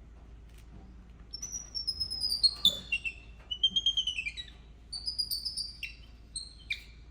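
A baby monkey squealing: a run of high-pitched calls, most sliding down in pitch, with short breaks between them.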